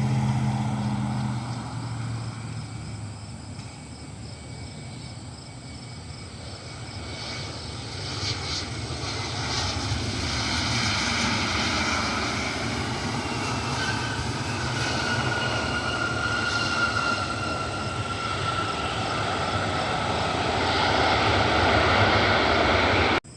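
Jet airliner on approach, its engines' noise swelling as it comes closer, with a high whine falling in pitch as it passes. A low road-vehicle engine hum fades out in the first second or two.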